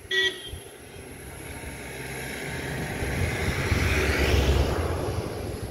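A motor vehicle passing by, its engine and tyre noise building over a few seconds to a peak about four seconds in, then fading away. A short beep-like sound comes at the very start.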